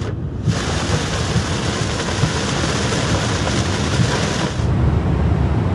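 Heavy rain pelting a moving car and tyres hissing through standing water on the road, with the car's low road rumble, heard from inside the cabin. The rain hiss comes in about half a second in and drops away shortly before the end, leaving the rumble.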